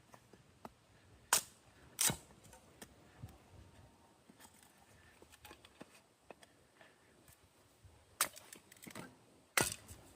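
Sharp chopping strikes splitting small kindling held steady with a sissy stick: two strikes a little apart near the start, then a quick cluster of strikes near the end.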